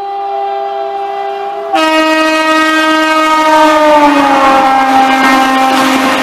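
Locomotive horn of an express train sounding a long, continuous chord as the train approaches and passes at speed. About two seconds in it turns louder with a different chord, and near the four-second mark its pitch slides down as the locomotive goes by, with the rush of the passing train building under it near the end.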